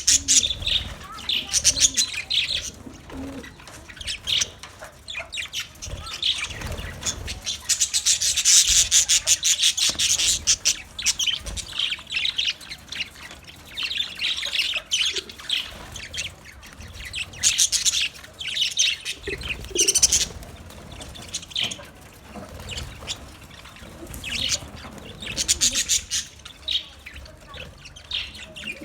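A flock of budgerigars chattering and chirping, rapid warbling calls from many birds rising and falling in waves, with some wing flutters and rustling.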